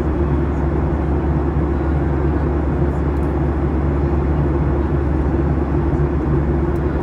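Jet airliner cabin noise in flight: a steady drone of engines and rushing air, with a strong low hum beneath it.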